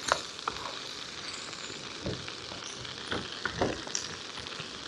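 Fried potatoes with onions and bacon sizzling in a frying pan, a steady hiss, with a few short knocks against the pan scattered through it.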